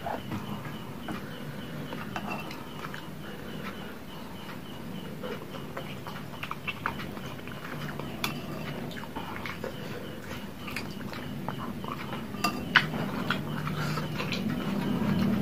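Close-up eating sounds of bakso meatball soup: chewing and mouth noises, with a metal spoon clicking against a ceramic bowl. One sharper clink comes near the end.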